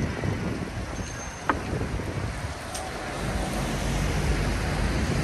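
Road traffic on a busy city street: motor vehicles running past with a steady low rumble, which grows louder through the second half. One short sharp click about a second and a half in.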